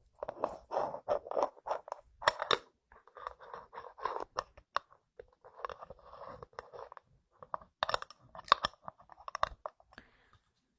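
Dried flower tea crunching and rustling as it is handled, in irregular crackly bursts with sharp clicks.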